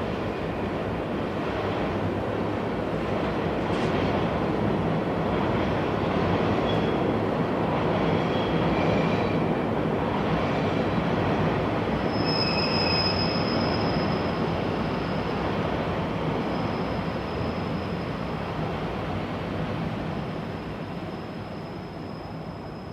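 Train running on rails with a steady rumble, and a high thin wheel squeal that comes in about halfway through and recurs; the sound slowly fades over the last few seconds.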